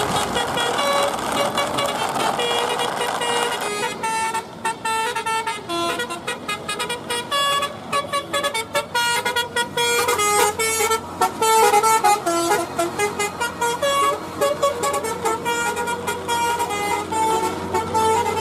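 Multi-tone telolet bus horn playing a quick melody of short, changing notes. For the first few seconds it sounds over a rushing noise, which stops about four seconds in.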